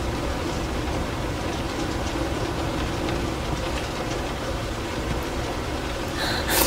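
A steady low rumbling noise with faint ticks through it, with a short, sharp, louder sound near the end.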